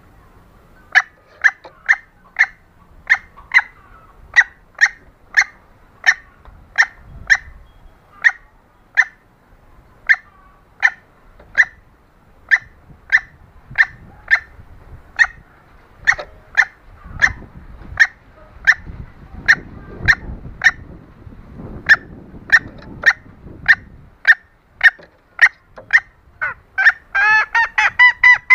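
Junglefowl hen calling, the hen lure call used to draw wild junglefowl: a long series of short, sharp clucking notes, about one to two a second with brief pauses, quickening near the end into a rapid run of longer notes.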